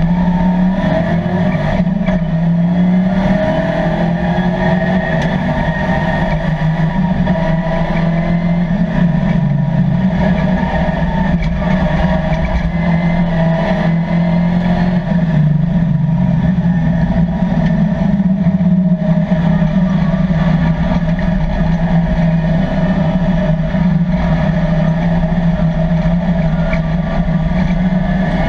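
LS3 V8 engine of a 1987 Chevrolet Camaro race car, heard from inside the cabin, running loud and continuously under racing load, its pitch shifting up and down through the lap.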